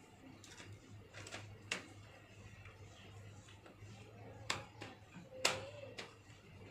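Faint, scattered light clicks and knocks of hands handling wire and a ladder, the loudest two about four and a half and five and a half seconds in, over a faint steady low hum.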